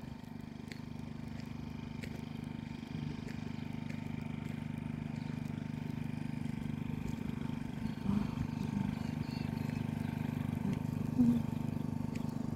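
A steady low engine hum that grows gradually louder.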